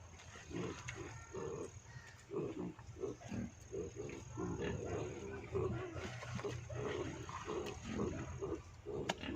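An animal making short, low calls repeated irregularly, a couple or more each second.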